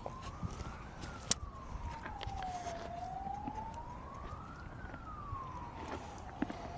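A siren wailing, its pitch sliding slowly up and down, about one rise and fall every four seconds. A sharp click sounds about a second in.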